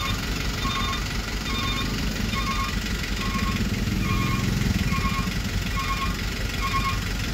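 Railway level-crossing warning bell ringing in evenly repeated electronic tones, a little faster than once a second, over a steady low engine rumble.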